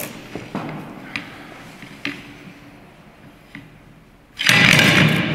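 Scattered light clicks and taps of an airsoft revolver being handled on a plate, growing fainter. About four seconds in, a sudden loud, dense noise cuts in and stays to the end.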